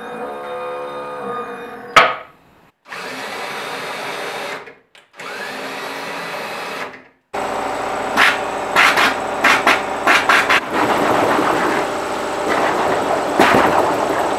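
Stepper motors whining as they swing a wooden mechanical arm, ending in one sharp, loud knock about two seconds in; then two short stretches of steady machine noise. From about halfway on, air bubbling up through a large tank of water, with repeated bursts as the sequenced solenoid valves release bubbles.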